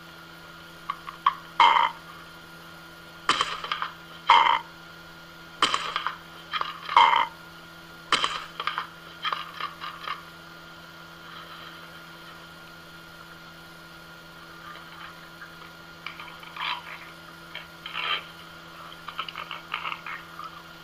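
A plastic pet food bowl knocking and scraping on a stone counter as a cat and a parrot push at it while eating: sharp irregular clacks, some in quick pairs, with a few faint clicks between, over a steady background hum.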